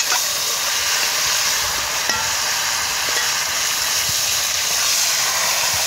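Seasoned chicken pieces sizzling as they fry in curry in a metal pot over a wood fire, a steady sizzle. The pieces are being stirred with a metal spoon, which ticks faintly against the pot a few times.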